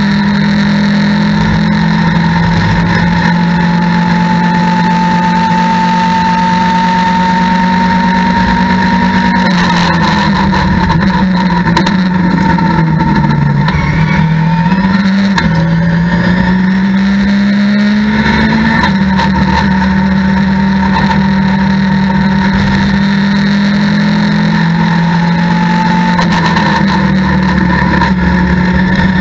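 Mitjet race car's engine heard from inside the cockpit, running hard under load in fourth gear. Its pitch sags about ten seconds in, bottoms out a few seconds later, then climbs back and holds steady again.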